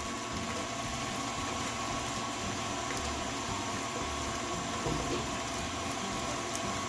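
Tilt-head stand mixer running steadily, its motor giving an even whine as the wire whisk beats egg whites in a steel bowl, whipping them into foam on the way to soft peaks.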